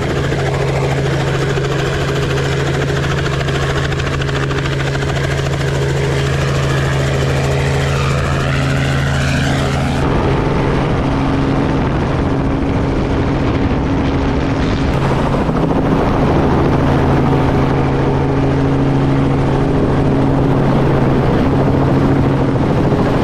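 Robinson R44 helicopter running steadily close by: a continuous engine and rotor drone. The sound shifts abruptly in character about ten seconds in.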